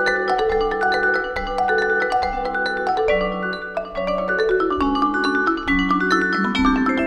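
Marimba duet music: a concert marimba played with yarn mallets in a quick, continuous stream of notes over a held low note, joined by a second mallet instrument, a vibraphone.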